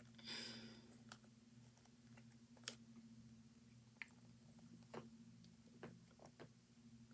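Near silence with a steady low hum, a brief soft rustle just after the start and a few faint small clicks and taps of objects being handled.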